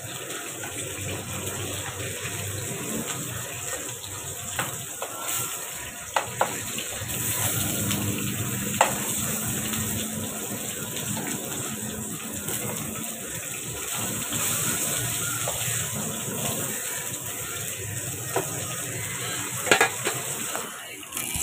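Chicken and green chillies frying in a pan with a steady sizzle, and a few sharp clicks of a spatula against the pan.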